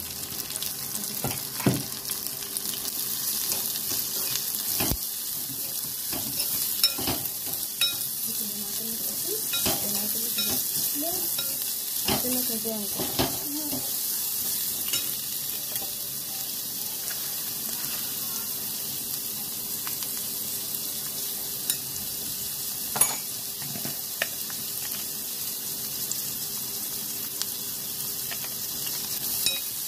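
Shredded cabbage, peas and carrot sizzling steadily in a metal wok while a metal ladle stirs them, with sharp clacks and scrapes of the ladle against the pan now and then.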